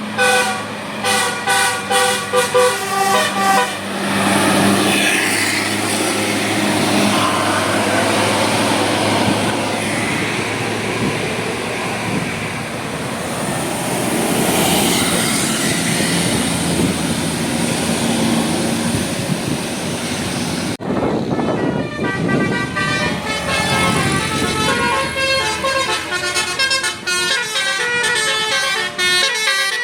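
Bus 'telolet' musical air horn playing a quick melody of stepped notes, then a long stretch of loud vehicle and road noise. About two-thirds of the way through the sound changes abruptly and another telolet horn melody plays with rapidly changing notes.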